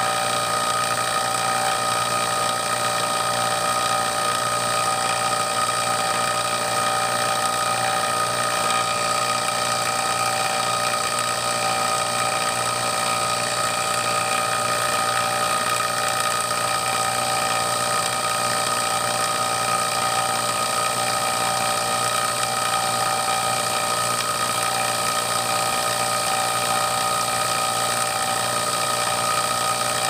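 Refrigeration vacuum pump running steadily while it evacuates an HVAC system at a deep vacuum of about 475 microns, an even mechanical drone with several steady tones.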